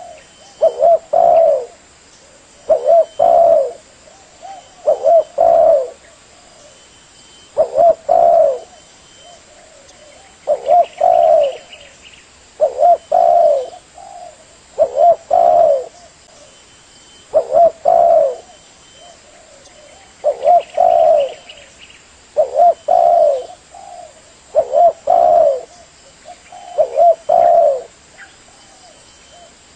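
Spotted dove (tekukur) cooing: a short phrase of two or three coos, repeated about every two to three seconds.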